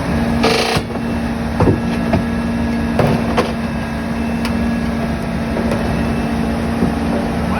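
Heavy construction machinery engine running steadily with a low, constant hum, with a short hiss about half a second in and a few scattered metallic knocks.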